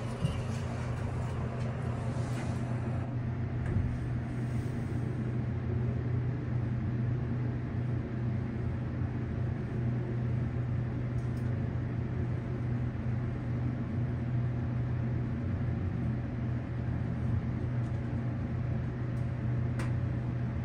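Montgomery hydraulic elevator descending, heard from inside the cab: a steady low hum and rumble that holds even for the whole ride. The doors slide shut in the first few seconds.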